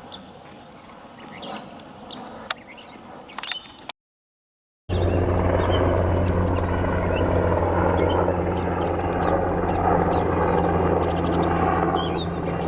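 A few soft clicks over quiet room sound, then after a short cut to silence a helicopter flying overhead: a loud, steady engine-and-rotor drone with a deep hum.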